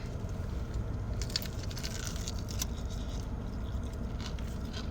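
Soft wet squishing and a few faint clicks as a sauced honey hot chicken wing is handled and eaten, over a steady low rumble.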